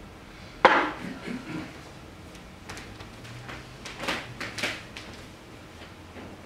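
A sharp knock less than a second in, followed by a few lighter knocks, then scattered clicks and rustles further on: props being handled at a wooden table and a paper shopping bag.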